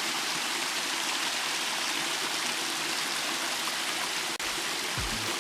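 Waterfall rushing into its pool: a steady, even noise of falling water.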